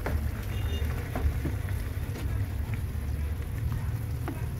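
Chicken, carrots and coconut milk simmering in a nonstick pan, an even bubbling crackle over a steady low hum. A few light clicks from a spatula stirring the pan near the end.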